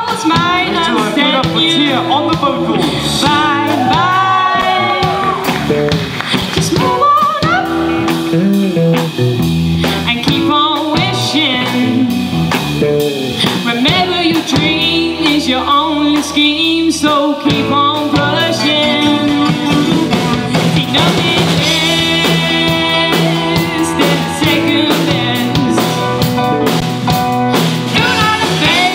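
Live band playing: a woman sings lead over electric guitars, a Pearl drum kit and a Kawai keyboard, in a blues-tinged rock groove.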